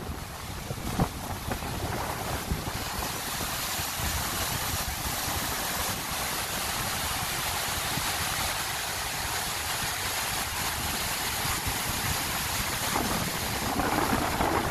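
Water rushing steadily down a reservoir overflow spillway lined with concrete blocks, with wind buffeting the microphone underneath.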